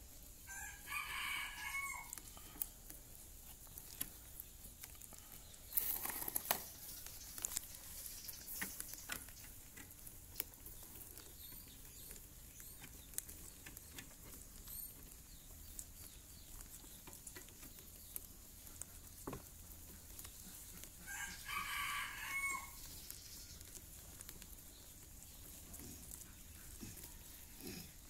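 Baby rabbits gnawing kernels off a corn cob, a steady run of small crunching clicks. A rooster crows twice in the background, about a second in and again about three quarters of the way through. A short loud rustle about six seconds in.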